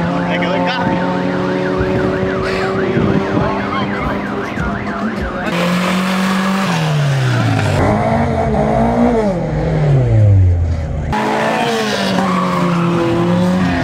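Four-cylinder drag-race cars revving hard and accelerating away, their engine pitch climbing and dropping through gear changes, in several cut-together runs. A fast warbling, siren-like tone sounds over the engines in the first few seconds.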